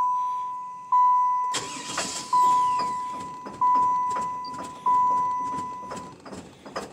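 Cadillac's dashboard warning chime ringing repeatedly, one fading tone about every 1.3 seconds. From about a second and a half in, the starter cranks the engine with a rattling, clicking noise under the chimes, on an attempt to start a car that would not start easily.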